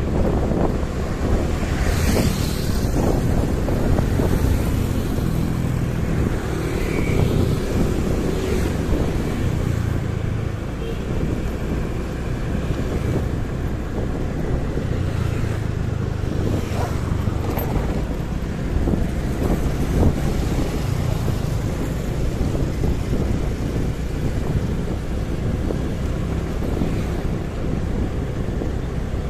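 Motorcycle engine running while riding, its pitch rising and falling with the throttle, under steady wind buffeting on the microphone. Other vehicles pass by briefly a few times.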